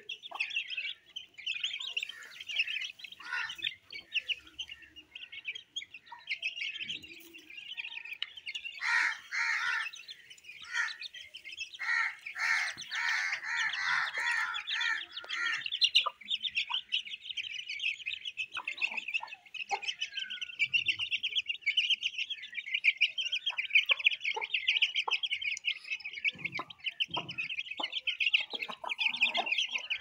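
Aseel chicks peeping continuously in rapid, high chirps as they feed. From about a quarter to halfway through, the Aseel hen clucks in a run of lower calls.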